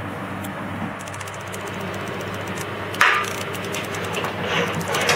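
Handling noise from parts inside a PM2.5 air sampler's cabinet: one sharp knock about three seconds in and a few lighter clatters over a steady low hum.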